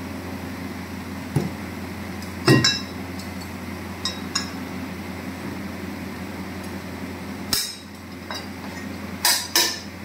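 Sharp metal clanks and knocks from a casting ladle and tongs striking metal, about seven in all, the loudest about two and a half seconds in and a quick pair near the end. A steady low hum runs underneath.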